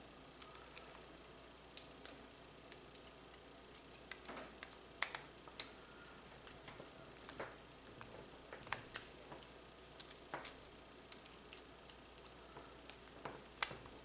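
Scattered, irregular small clicks and knocks of a replacement power-cord plug's parts being handled and pushed together during assembly.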